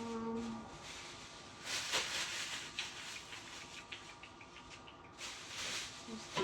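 Groceries being handled: rustling of packaging, with a run of light clicks and taps partway through.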